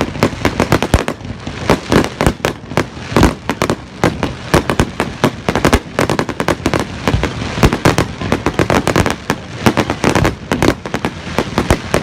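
A dense barrage of fireworks shells bursting, many loud bangs a second overlapping with crackling, without a break.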